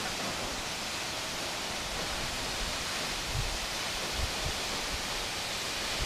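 Steady rushing of a tall mountain waterfall, a thin ribbon of water falling down a rock cliff face.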